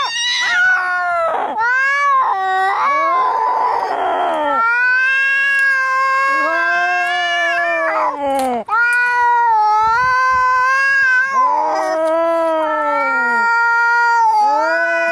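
Angry cats caterwauling in long drawn-out yowls that rise, waver and fall, one after another and sometimes overlapping, with a harsh hiss about three to four seconds in: the sounds of a cat fight.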